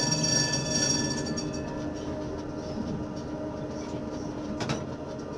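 A tram running, heard from inside the driver's cab. A steady high whine of several tones fades out in the first second or so, leaving the even rumble of the running tram, with one sharp click near the end.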